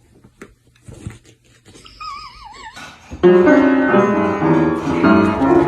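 Faint scattered clicks, then a short wavering, warbling tone, then loud music with sustained instrument chords starting suddenly about three seconds in.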